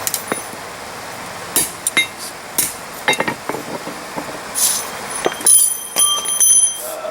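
Steel tongs and rod clinking and knocking together: scattered light metallic knocks, then a quicker run of sharper clinks that ring on about five and a half seconds in. A steady rushing noise runs underneath and drops away at the same point.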